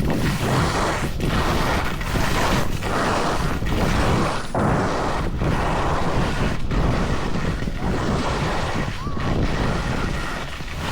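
Skis scraping and carving over packed snow at speed, with wind rushing over the microphone. The noise swells and drops about once a second, in step with linked turns.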